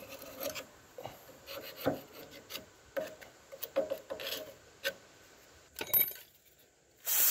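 A thin metal hand tool scraping and rubbing inside the steel spindle bore of a garden tractor's front axle, cleaning it out, in short irregular strokes, with a louder rasp right at the end.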